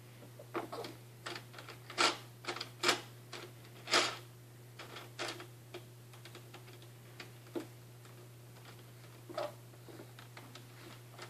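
Irregular hard plastic clicks and clacks from a toddler working the buttons and parts on the dashboard of a plastic ride-on toy car, loudest about two, three and four seconds in and sparser after that, over a steady low hum.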